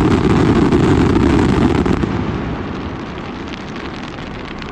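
A barrage of firecrackers going off in a dense, continuous crackle, loud for about two seconds and then thinning out into scattered pops.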